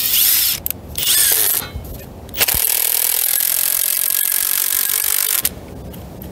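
Cordless drill driving a long timber-lock screw into a pine beam: two short bursts, then a steady run of about three seconds that stops suddenly.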